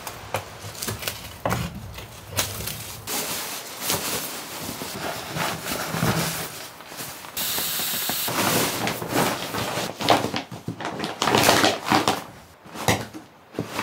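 Camping gear being packed by hand: nylon fabric rustling and scraping with many small clicks and knocks, as an inflatable sleeping pad and a backpack are handled. A brief steady hiss comes about seven and a half seconds in.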